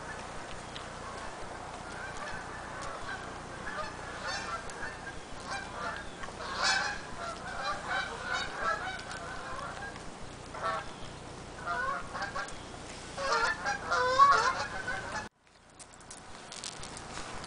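Repeated nasal honking calls in uneven groups, loudest about two-thirds of the way through, over a dog crunching dry kibble and sniffing along concrete. The sound drops out suddenly for about a second near the end.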